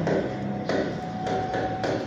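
Footsteps on a tiled floor, a soft knock about every half second, over a faint steady tone.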